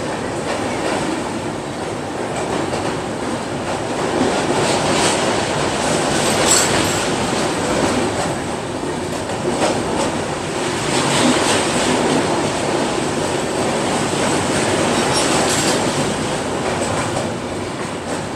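Passenger trains running over a steel truss bridge, one passing close alongside on the next track: a loud, steady rumble and clatter of wheels on rails, with sharp clicks now and then.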